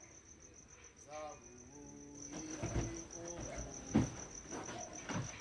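Crickets chirping steadily in a high, evenly pulsed trill. About a second in there is a brief murmur from a voice. From about two seconds on come rustling and knocks of a person moving on a bed, the loudest thump about four seconds in.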